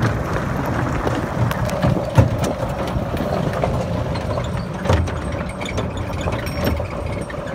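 EZGO Workhorse E1600 electric utility cart driving over a gravel track, with a steady faint motor whine under the tyre and chassis noise. A loose battery charger bouncing in the dump bed rattles throughout and gives two louder knocks, about two seconds in and again near five seconds.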